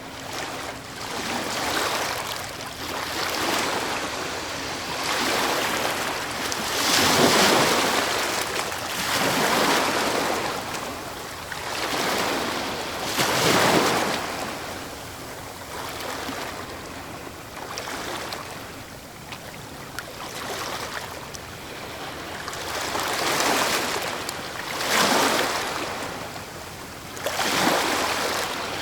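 Ocean waves breaking on the shore: a steady wash of surf that swells and recedes every few seconds, with a few larger waves crashing louder.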